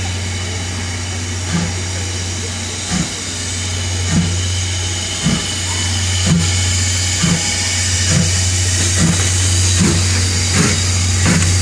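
C56 steam locomotive pulling away from a standstill, its exhaust chuffing at first about once every second and a half and quickening to more than one a second as it gathers speed, over a steam hiss and a steady low hum.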